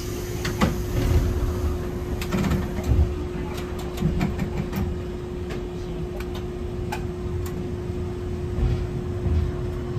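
Hankai Tramway type 701 streetcar heard from inside: a low rumble under a steady hum, with scattered clicks and knocks.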